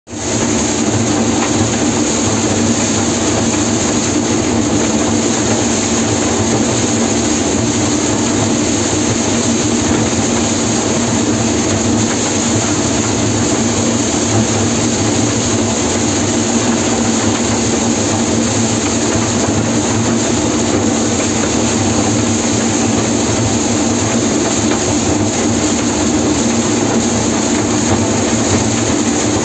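John Deere 952 combine harvesting maize, heard from the cab: engine, corn header and threshing machinery running in one loud, steady, unchanging drone.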